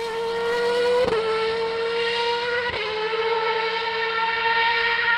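1998 Minardi Formula One car's V10 engine running at high revs on the move, a steady high-pitched scream with two brief breaks in the note about one and three seconds in, its sharper upper edge thinning as the car pulls away.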